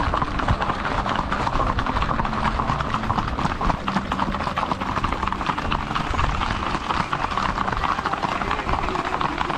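Hooves of a group of horses clip-clopping in a dense, continuous clatter.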